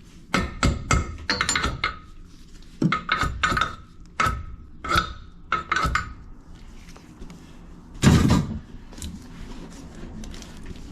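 A run of sharp metallic knocks, about two a second, each with a short ring, then one heavy thump about eight seconds in.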